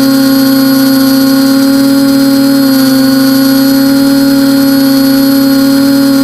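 TBS Discovery quadcopter's four brushless motors and propellers whining at a loud, steady pitch in cruising flight, picked up by the camera mounted on the craft itself.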